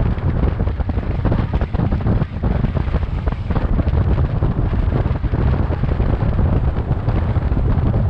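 Wind buffeting the microphone of a moving car, a steady, heavy low rumble with road and vehicle noise under it.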